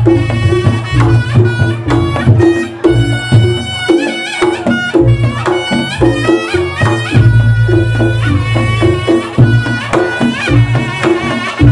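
Reog Ponorogo ensemble playing: kendang drumming drives a steady rhythm under a shrill reed melody with wavering, bending notes, typical of the slompret, with low gong strokes beneath.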